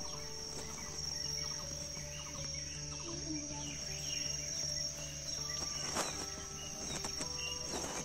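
Steady high-pitched drone of insects in a forest, with faint bird chirps and a couple of soft rustles near the end.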